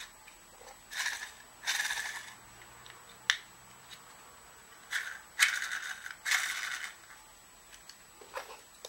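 Plastic parts of a 3D-printed PLA air motor being handled and turned over in the hands: several short bursts of scraping and rattling, with a sharp click about three seconds in and another near the end.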